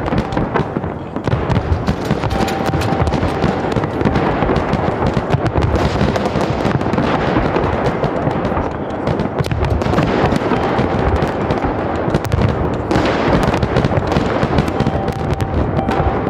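Large aerial fireworks display: a dense, continuous barrage of shell bangs and crackling with no pauses.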